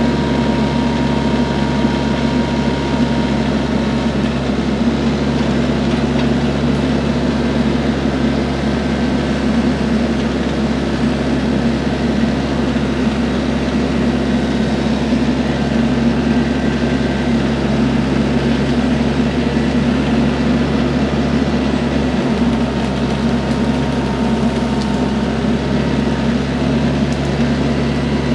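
Compact diesel tractor engine running steadily at a constant speed.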